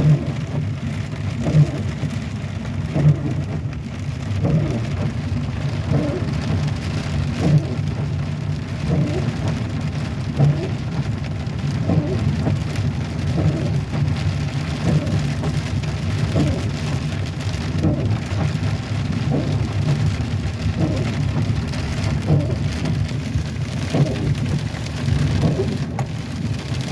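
Heavy rain drumming on a car and tyres hissing through standing water, heard inside the moving car's cabin during a thunderstorm. A short, sharper peak recurs about every second and a half.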